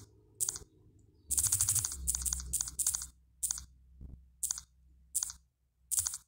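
Fingertip taps on a smartphone touchscreen: about ten short, sharp clicks at irregular spacing, a few in a quick run about a second and a half in, as on-screen buttons are pressed over and over.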